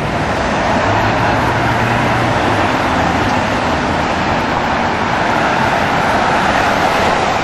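Steady road traffic noise from passing vehicles, with a low hum for about a second and a half starting about a second in.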